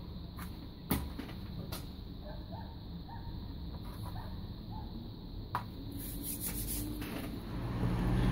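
Light clicks and knocks of small parts and cable being handled on a wooden workbench, the sharpest about a second in, over a low steady background hum.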